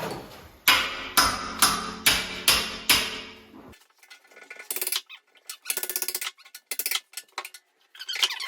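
Six sharp lump-hammer blows, about two a second, each ringing out briefly: a seized bath tap being struck to shock it loose. In the second half they give way to quieter, irregular knocks and rattles.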